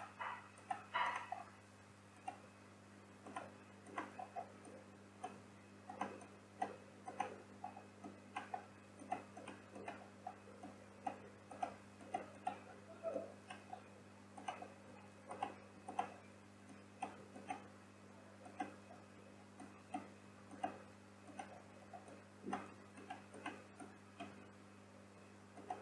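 Irregular clicks and ticks of a computer mouse, its scroll wheel and keyboard keys, a few a second and sometimes in quick runs, over a steady low hum.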